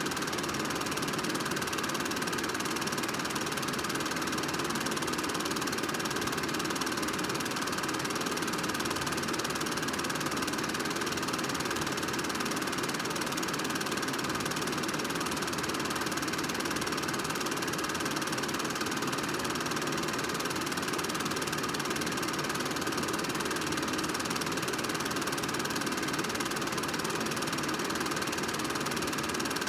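Home-movie film projector running, its motor and film mechanism making one even, unbroken mechanical noise.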